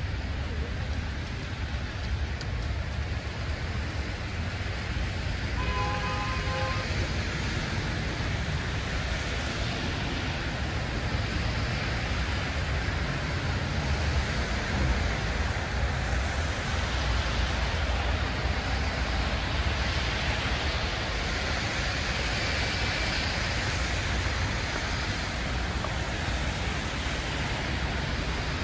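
Steady city street noise in falling snow: a low traffic rumble and an even hiss, with a short pitched sound about six seconds in.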